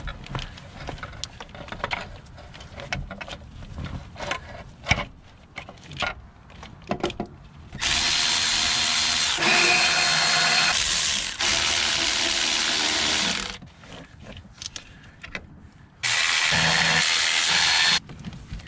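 Light clicks and knocks of metal parts being handled, then a power tool runs about eight seconds in for roughly six seconds, and again near the end for about two seconds, driving in the valve cover bolts.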